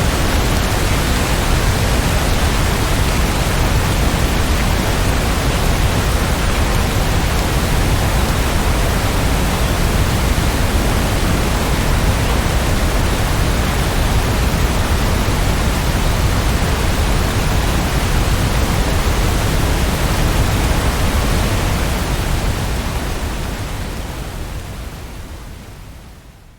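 Steady heavy rain, a dense even hiss with a deep rumble underneath, fading out over the last few seconds.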